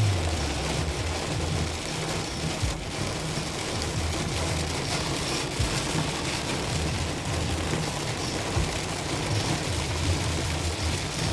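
Heavy rain beating on a car's windshield and roof, heard from inside the cabin over the steady low rumble of the car at highway speed.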